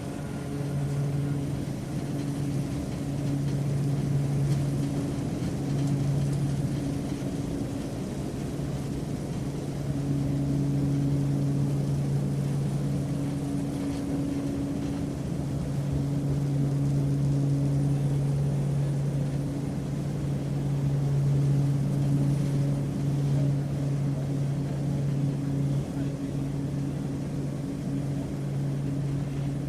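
Passenger airplane engines running steadily in flight, a constant low hum with a second, fainter tone above it over a rumble.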